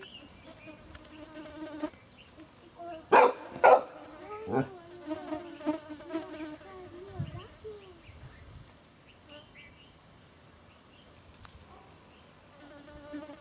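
A fly buzzing on and off, its pitch wavering as it moves about. About three seconds in come two short loud sounds, half a second apart.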